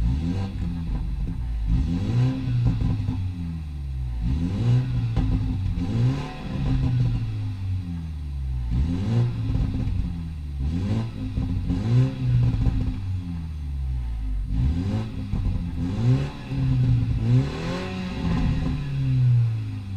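BMW 125i's turbocharged 2.0-litre four-cylinder exhaust under repeated hard acceleration, the revs climbing and dropping abruptly as the 8-speed automatic shifts up every couple of seconds. Brief cracks, the shift farts, sound at the shifts.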